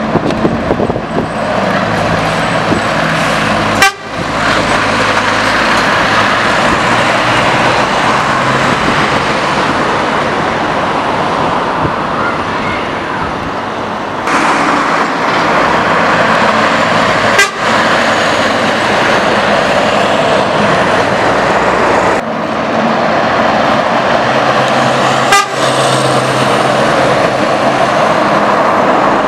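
Loud exhaust note of a straight-piped Scania R500 truck as it drives past, heard in several clips joined by abrupt cuts, about a third and two thirds of the way in and near the end.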